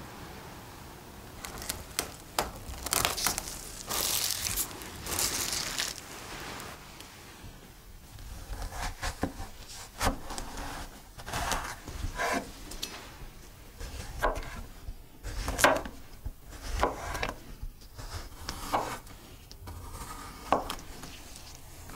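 Chef's knife slicing a zucchini on a wooden cutting board: crisp cuts, each ending in a knock of the blade on the board, about one or two a second through the second half. A few seconds of crinkly rustling come before the cutting starts.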